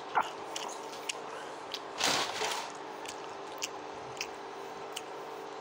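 Scattered soft clicks and a brief rustling crunch about two seconds in, close to the microphone, over a steady low hum.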